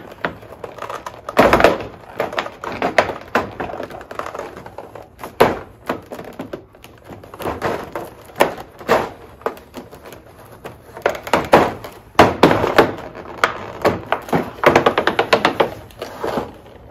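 Clear plastic blister tray crackling, flexing and knocking as it is worked out of its box, in irregular clusters of sharp crackles with short gaps.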